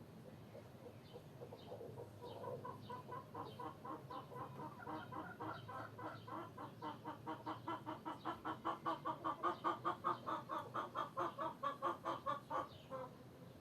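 Chickens clucking: a long, rapid run of clucks at about four to five a second that builds louder, then stops about a second before the end. Faint, higher chirps are heard in the first few seconds.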